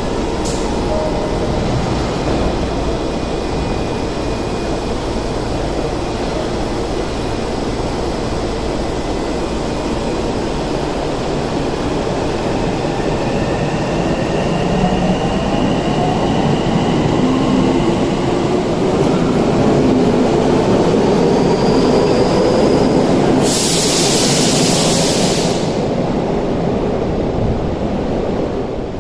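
Tokyo Metro Namboku Line electric train pulling out of an underground station: a steady running rumble, with the traction motors' whine rising in pitch as it speeds up. A short burst of hiss comes near the end.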